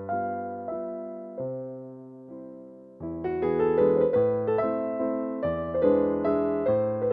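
Background piano music: soft, slow struck chords. It drops quieter between about one and three seconds in, then comes back fuller with a run of notes.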